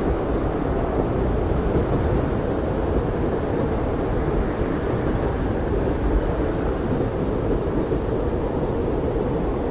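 Blizzard wind blowing steadily, a deep, even rumbling rush with little hiss.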